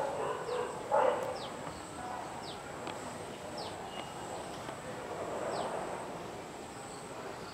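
Outdoor garden ambience: a dog barks once about a second in, and a bird gives short, high, falling chirps every second or so, over a steady thin high-pitched tone.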